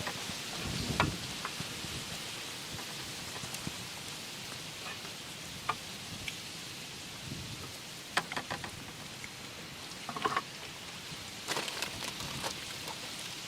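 Steady rain falling, with scattered sharper drops tapping close by, a few of them louder a little past the middle and near the end.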